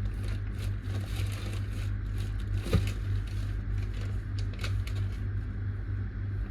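A small engine running steadily, with scattered light crackling and one sharp knock a little under three seconds in.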